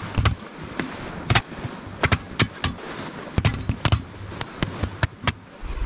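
A large knife chopping into a green coconut's husk to open it: a rapid, irregular series of sharp chops, about fifteen in six seconds.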